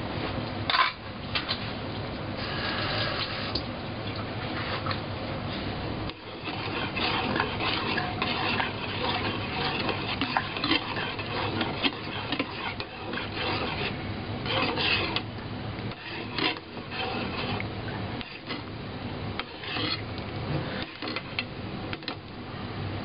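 A metal spoon stirring garlic chicken stock in a metal saucepan, with irregular scrapes and clinks against the pan's sides and bottom.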